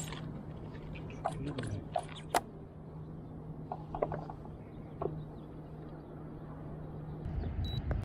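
Scattered clicks and light knocks of fishing gear being handled on the deck of a stand-up paddleboard, over a steady low hum that stops near the end.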